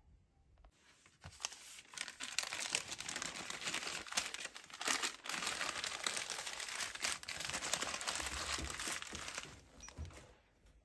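Sheet of brown baking paper being folded and crumpled by hand, a dense dry crinkling that starts about a second in and dies away near the end.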